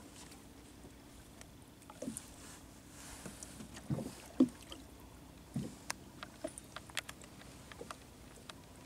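Handline being hauled in over the side of a boat and a hooked fish splashing at the surface: a few short splashes and knocks, the loudest about halfway through, then light clicks and ticks as the fish comes up out of the water.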